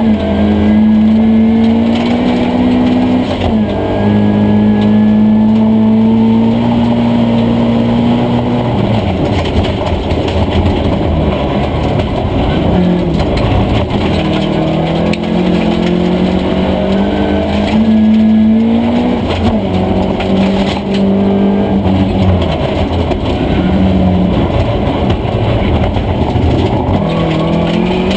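Volvo 240 Group H rally car's engine running hard at high revs, heard from inside the caged cabin. The revs drop sharply at upshifts a few seconds in and again around the middle, with dips and climbs as the driver lifts and gets back on the throttle.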